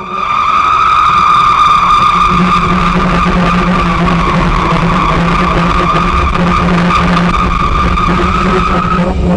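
Contemporary chamber quartet of violin, saxophone, accordion and percussion holding one loud, sustained high tone with a noisy, screechy edge over a steady low drone. It cuts off about nine seconds in.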